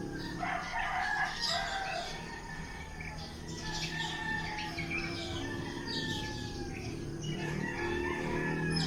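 Several roosters crowing, their long calls overlapping and sliding down in pitch at the end, with chickens clucking and small birds chirping among them. A steady low hum runs underneath.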